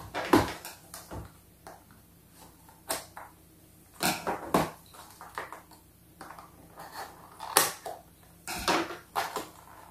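A small cardboard toy box being handled and opened by hand: scattered taps, clicks and rustles of card and plastic packaging, with short quiet gaps between them.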